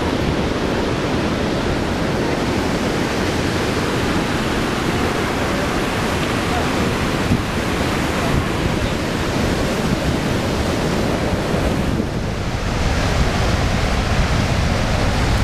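Niagara Falls' waterfall making a steady, loud rush of falling water, with wind on the microphone; the sound dips briefly about twelve seconds in and comes back fuller and deeper.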